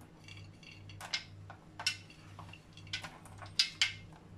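Topping of nuts, chocolate chips and coconut being picked from a ceramic plate by hand and scattered over cake batter: light, irregular clicks and rustles of fingers and pieces against the plate, with a few sharper clicks near the end.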